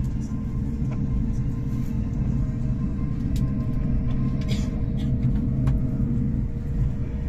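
Steady low rumble of the Whoosh high-speed electric train running at speed, heard inside the passenger car, with a faint steady hum and a few light clicks.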